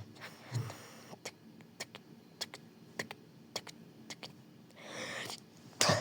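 Sharp clicks at a steady pace of about two a second, then a breathy rush of air and a louder burst near the end.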